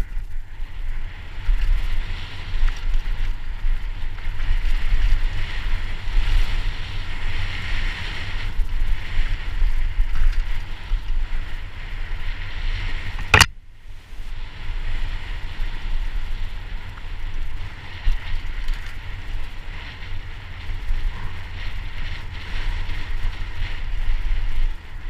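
Downhill mountain bike running fast over a rough dirt trail, heard from a handlebar-mounted action camera: steady wind buffeting on the microphone with tyre rumble and rattling from the bike. A single sharp knock about halfway through.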